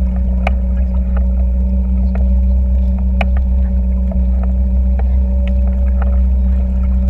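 The towing boat's motor running steadily at an even pitch over a low rumble, with scattered small ticks of water slapping against the stand-up paddleboard.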